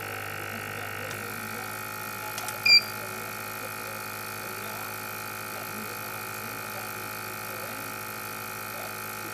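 BGA rework station running steadily while heating a laptop GPU for reflow. A second hum cuts off about a second in. Near three seconds in there are two faint clicks, then one short, loud electronic beep.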